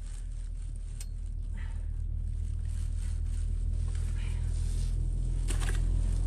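A motor vehicle's engine running outside, a low steady drone that grows louder, with a few light knocks and a brief rustle as a loaded bicycle is shifted about.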